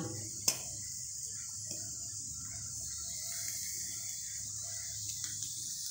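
Steady high hiss of potato pieces frying in oil in a kadai, with one sharp click about half a second in.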